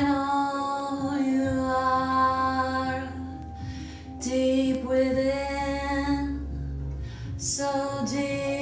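A slow song: a singing voice holding long notes over a steady low drone, with brief breaks between phrases.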